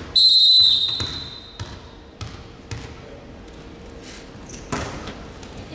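Volleyball referee's whistle blown once in a long blast of about a second and a half, then a few scattered thuds of a ball bouncing on the court floor.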